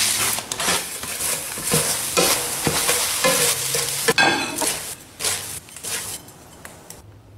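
Food frying and sizzling in a pan while a spatula stirs and scrapes it, loud for the first four seconds. After that come a few weaker scrapes as the fried food is served onto a plate.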